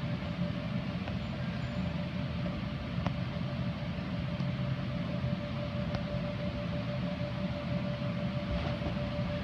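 Steady mechanical hum with a constant whining tone from the gym's ventilation and air-conditioning units, with a few faint taps.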